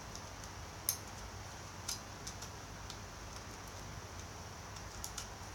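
A camera being handled in the hands: a few faint, scattered clicks, the sharpest about a second in and another about two seconds in, over a steady low room hum.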